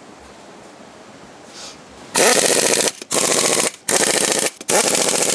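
Impact wrench running lug nuts onto the reinstalled rear wheel: four loud hammering bursts a little under a second each, starting about two seconds in, each spinning up with a rising whine.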